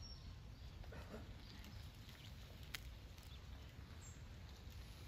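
Near silence: faint outdoor background with a low steady rumble, one sharp click a little past halfway and a brief faint high chirp near the end.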